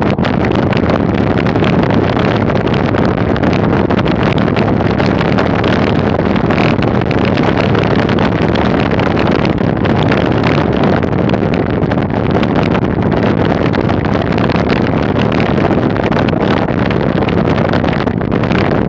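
Steady wind rush buffeting the microphone of a camera moving along a gravel road, with the tyres' rolling noise on the gravel beneath it.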